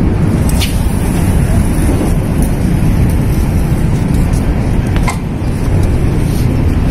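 Wind buffeting the microphone: a steady low rumble, with a couple of faint clicks about half a second and five seconds in.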